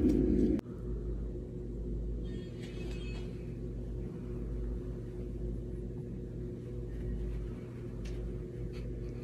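Background music cuts off about half a second in. After that there is only a steady low hum, with a faint, brief rustle near the third second.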